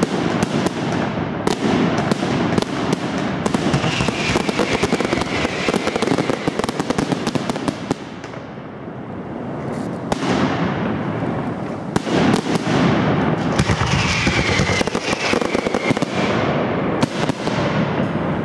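Aerial fireworks display: dense volleys of shells launching and bursting, with rapid bangs and crackling. There is a brief lull about eight seconds in, then the bangs build again.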